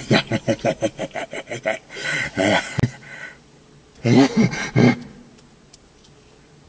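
A man's wordless vocal noises: a fast run of short pulsed cries for about two seconds, a brief cry, then two longer wavering cries about four seconds in.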